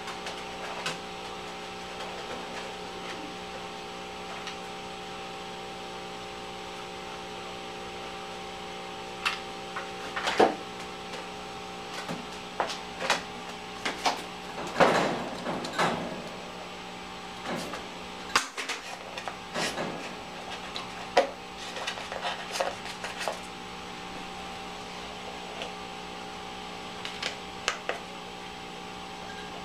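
Steady electrical hum made of several fixed tones. From about nine seconds in come scattered clicks, taps and knocks from craft tools and foam-board pieces being handled on a wooden table.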